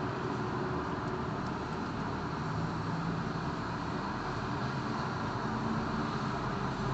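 Steady road traffic noise from a busy city intersection: cars, minibuses and trolleybuses passing, with a low engine hum swelling now and then.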